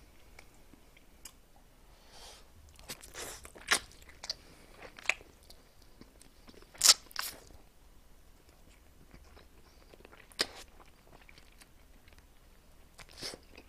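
A person biting and chewing soy-glazed fried chicken, with scattered short crunches of the coating, the loudest pair about seven seconds in.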